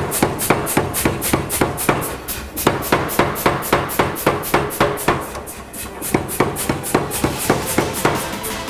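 Power hammer striking a hot, drilled Damascus steel billet in a steady run of about five blows a second, flattening it down. The blows lighten for a moment a little past halfway, then pick up again.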